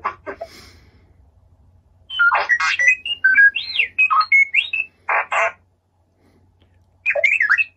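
R2-D2 droid beeps and whistles, generated on the fly by a phone app and played over Bluetooth through the droid's amplifier. A fast run of chirps and warbling pitch glides, including one big rising-and-falling swoop, starts about two seconds in. A short burst of chirps follows near the end.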